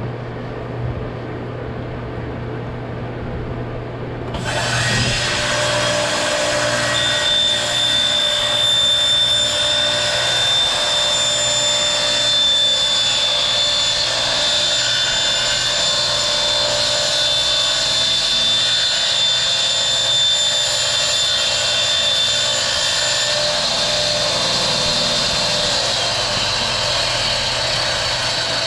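Table saw cutting a 4-inch PVC port tube as the tube is turned in a cradle jig against the blade. A low motor hum gives way about four seconds in to loud, steady cutting noise with a high whine through the middle, easing near the end.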